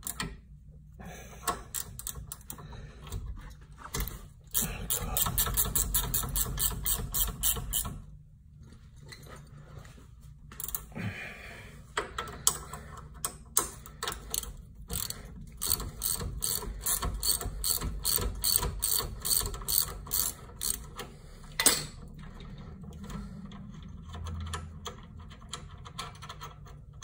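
Ratchet wrench clicking in quick, even runs of strokes as a bolt on the golf cart's front end is turned, with a pause in the middle and a single sharper click near the end.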